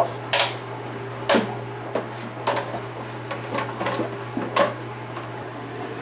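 Sharp plastic clicks and knocks, about one a second, as the plastic top-rack water-feed tube of a KitchenAid dishwasher is worked by hand and its two-port connector is popped off. A steady low hum runs underneath.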